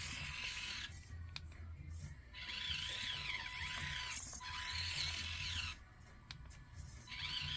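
Axial AX24 XC-1 micro RC crawler's electric motor and gears whining as it is driven, the pitch rising and falling with the throttle. It stops twice, about a second in and again near the end.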